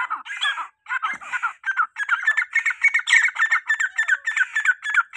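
Female francolins (teetar) calling: short shrill notes, broken at first, then from about two seconds in a fast, regular run of repeated calls.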